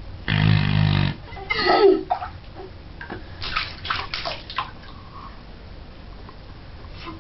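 A pink plastic cup worked in bathwater makes a low, buzzing fart noise lasting about a second near the start. A few seconds in, a short run of splashes and sloshing bathwater follows.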